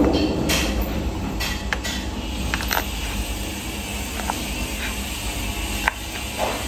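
Kitchen knife cutting through soft pork sausage and knocking on a wooden cutting board: a string of short, sharp taps at irregular spacing, over a steady low hum.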